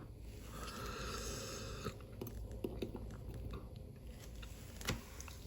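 Faint small clicks and light scraping of watchmaker's tweezers and screwdriver handling the parts of a watch movement's keyless works, with a soft hiss through the first two seconds.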